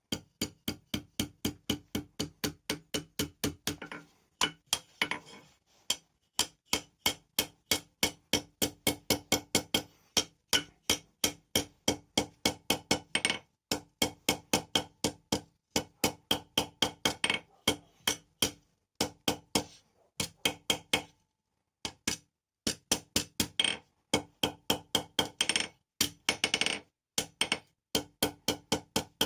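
Hammer striking hot steel on an anvil, a quick steady run of blows, about three to four a second, each with a short metallic ring, broken by a few brief pauses.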